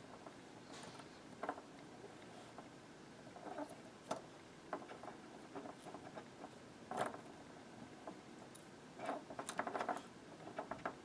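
Faint scattered clicks and light taps from small parts and tools being handled on a workbench, with a quick flurry of clicks about nine seconds in.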